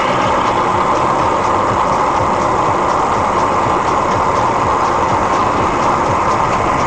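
Steady road and engine noise from inside a moving car's cabin, with an even rush that neither rises nor falls.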